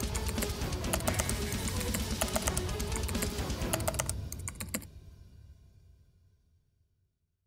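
Background rock music with guitar and many rapid, sharp clicking hits. It breaks off about five seconds in and trails away into silence.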